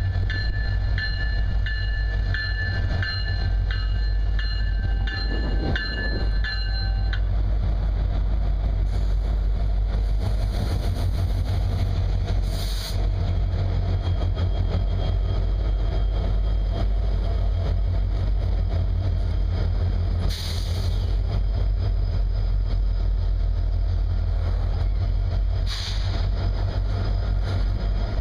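Union Pacific diesel locomotives and a double-stack container train passing close by: a steady low engine rumble and rolling wheel noise. A bell rings in a steady rhythm for the first seven seconds, then stops. There are a few short, sharp high-pitched noises from the passing cars.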